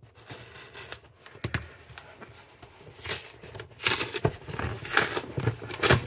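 Cardboard shipping box being cut and pulled open by hand: glued flaps and tape tearing, with irregular scraping and rustling of cardboard that gets louder and busier in the second half.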